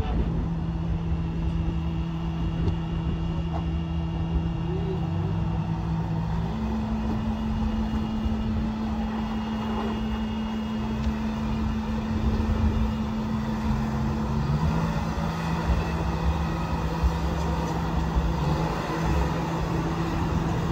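Rock crawler's engine pulling at low revs while it climbs over boulders. The note is steady, steps up in pitch about six seconds in, drops back about eight seconds later, and then rises briefly now and then as the throttle is worked.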